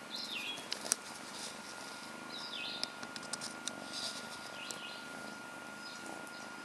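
Small birds chirping, a short call about every two seconds, with light clicks of a kitten's teeth and claws on a thin wooden stick, over a steady high-pitched tone.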